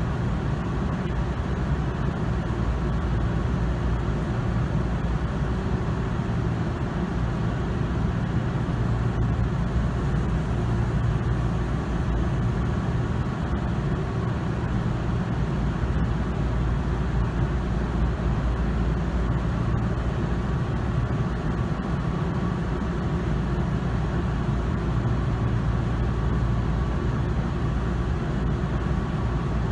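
Steady low hum of an electric commuter train standing at a platform, heard from inside the carriage, with a faint steady whine running through it.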